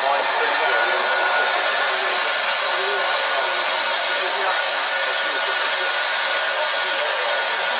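Steady, loud hiss of steam from a standing 0-6-0T steam tank engine, No. 47406, held at a platform.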